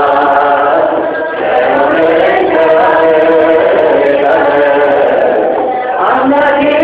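Ethiopian Orthodox hymn (mezmur) sung by a group of voices together in a chant-like melody, continuous with brief breaths between phrases.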